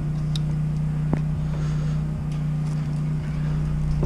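Steady low hum of an engine running, with a few faint knocks and taps over it.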